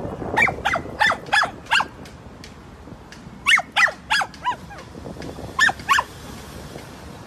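Small dachshund barking in three quick runs of short, high yapping barks: about five, then four, then two.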